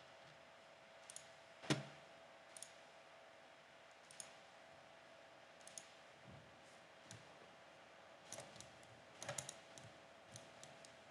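Scattered clicks of a computer mouse and keyboard, single clicks and short runs, with one louder click about two seconds in, over a faint steady hum.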